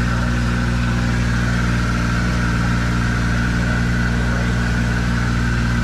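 Vehicle engine running steadily: a low, even drone with a constant higher whine above it.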